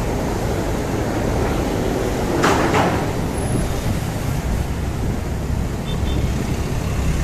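Road traffic heard from a moving bicycle: a steady rumble of engines and tyres, with a short hiss about two and a half seconds in.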